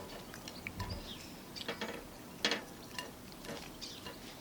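A few scattered light clicks and taps, the loudest about two and a half seconds in.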